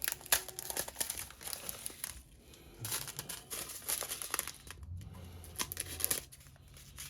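Small plastic bags of diamond painting drills crinkling as they are handled, in irregular bursts with short pauses.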